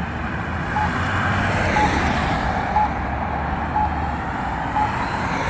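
Campbell Guardian accessible pedestrian signal's locator tone: five short, mid-pitched beeps, about one a second, over steady road traffic.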